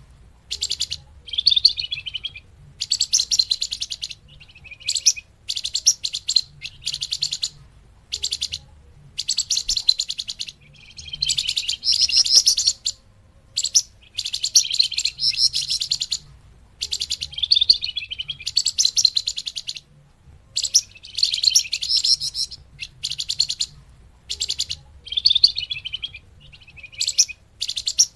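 Flamboyan bird song used as a trapping lure: rapid, high chattering trills in bursts of a second or two, repeated again and again with short pauses between.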